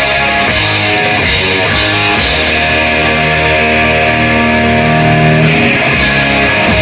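A rock band playing live, loud and steady, led by electric guitars over bass and drums.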